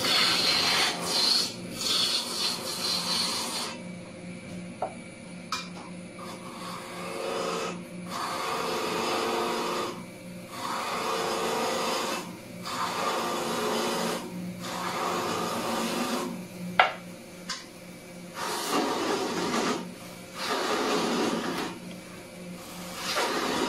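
Wood lathe running with a steady hum while a hand-held turning chisel cuts the spinning wood blank in repeated scraping passes of a second or several, with short breaks between them. One sharp click partway through.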